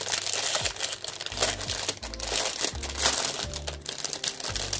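Crinkly packaging of a set of hair claw clips rustling as it is handled, over background music with a bass line that changes note every half second or so.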